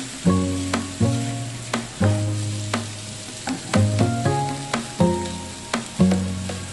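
Butternut squash sizzling in a frying pan as it is stirred, with sharp clicks of the spatula against the pan. Background music with held bass notes plays over it.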